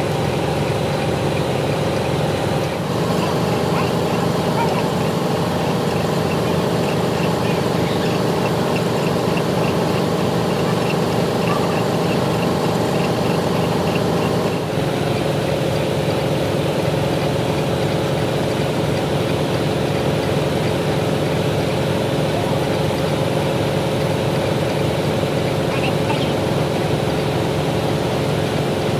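Heavy machine-shop machinery, a lathe machining steel, running steadily with a constant mechanical hum. The sound shifts abruptly twice, about 3 and 15 seconds in.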